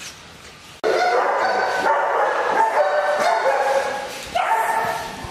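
Young black German Shepherd whining: a run of high whines that steps up and down in pitch, starting abruptly about a second in.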